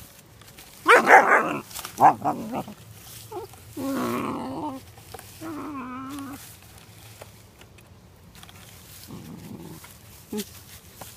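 Puppy barking: a few loud, sharp barks about a second in, then two longer, drawn-out pitched calls around four and six seconds in, and only faint sounds after that.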